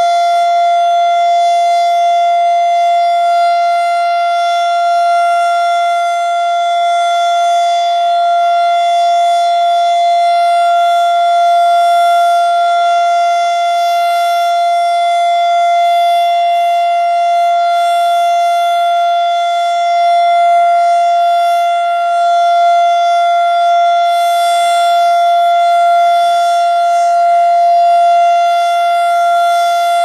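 Federal Signal STH-10 mechanical outdoor warning siren sounding one steady, unwavering tone at full speed during its weekly test.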